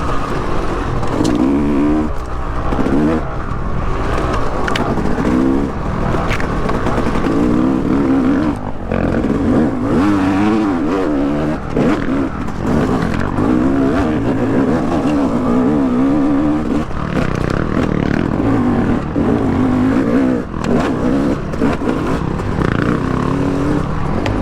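Yamaha YZ250X two-stroke dirt bike engine revving up and down continuously while riding a trail, with scattered knocks and clatter from the bike over rough ground.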